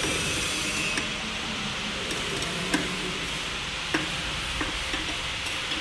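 Steady hissing background noise with a few faint, sharp metal clicks from a hand tool turning a screw on the machine.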